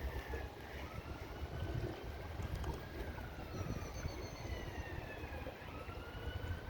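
Distant emergency-vehicle sirens wailing, their pitch rising and falling slowly every couple of seconds, faint over a low rumble of wind and traffic.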